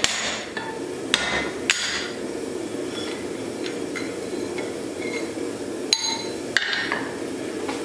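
Blacksmith's hand hammer striking a hot axe head on the anvil: three sharp ringing blows in the first two seconds, lighter taps between, then two more hard blows about six seconds in, over a steady low hum.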